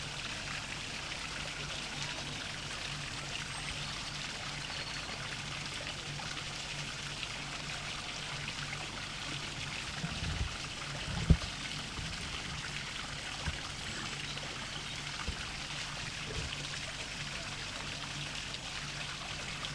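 Small waterfall splashing steadily, an even hiss of falling water. A single sharp thump about halfway through stands out, with a few softer knocks just before it.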